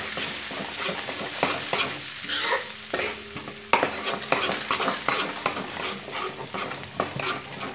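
Ground onion-coconut masala paste sizzling as it fries in hot oil in a kadhai, with a steel ladle stirring it and repeatedly scraping and knocking against the pan.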